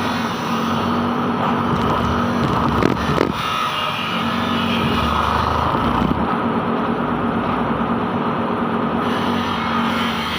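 An engine running steadily, with a couple of knocks about three seconds in.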